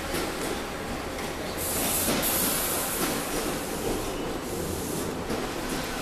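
Passing train: a steady rumble of wheels on the rails, with a louder rushing hiss from about one and a half to three seconds in.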